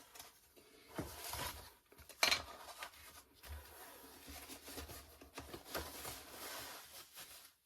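Thin laser-cut plywood kit sheets being handled and laid down: light wooden clacks and rustling, the loudest knock about two seconds in.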